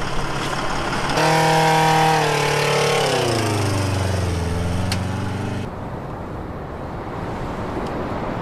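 A vehicle engine running, its note held steady and then falling in pitch over about two seconds. About halfway through the sound changes abruptly to a quieter, duller vehicle noise.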